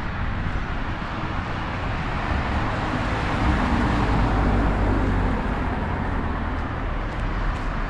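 Road traffic on a busy street: a steady rumble and tyre noise of passing cars, with one vehicle swelling louder as it passes about halfway through.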